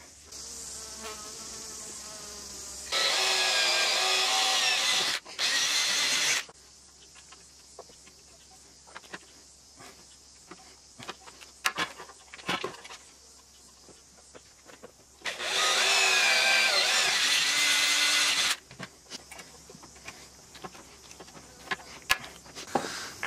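Cordless drill boring holes into an aluminium mast tube, running in three bursts: about three seconds in, briefly again just after, and from about fifteen to eighteen seconds, its motor pitch shifting as the bit bites. Scattered clicks and knocks of handling fall between, with sharper clicks near the end from a hand pop-rivet gun.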